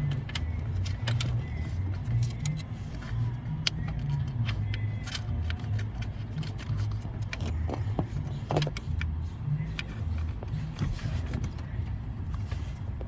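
Small metal clicks and clinks, scattered and irregular, from hand work on a brake light switch and its retaining clip, over a steady low rumble.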